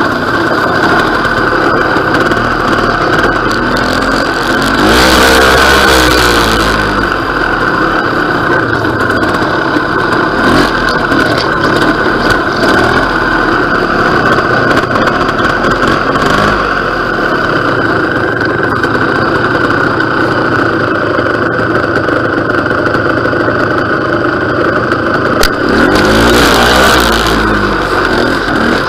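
Vintage trials motorcycle engine running at low revs, picked up close by a microphone mounted on the bike. It gets two short bursts of throttle, about five seconds in and again near the end, where it gets louder and its pitch rises and falls.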